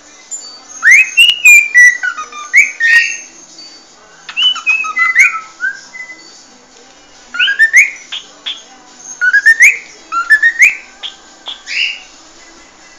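Cockatiel whistling its natural species song: short phrases of rising whistled notes, coming in several bursts with brief pauses between them.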